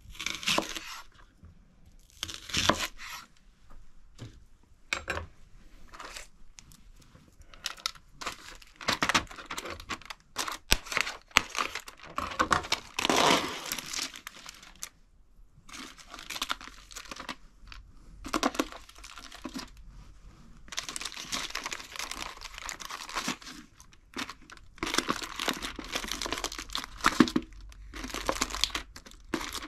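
Crinkly wrapping being handled, crumpled and torn in irregular crackling bursts of a second or two.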